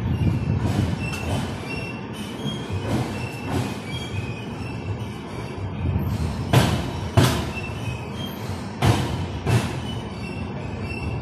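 Indian Railways passenger coach pulling out slowly, heard from its open doorway: a low rumble, with pairs of sharp knocks as the bogie wheels cross rail joints. The knocks are loudest about six and nine seconds in. Faint short high-pitched squeaks run through it.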